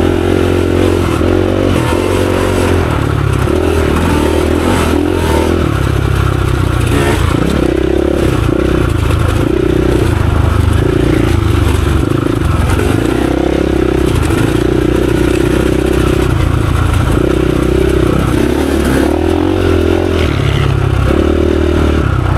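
Dirt bike engine running under load while riding, its revs rising and falling over and over.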